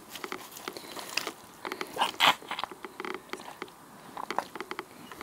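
Rubber boots stepping through fallen leaves, an irregular crunching and rustling that is loudest about two seconds in.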